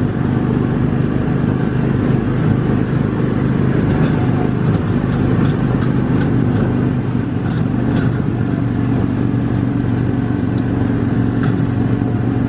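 Small gasoline engine of a Tomorrowland Speedway ride car running steadily at a nearly constant pitch.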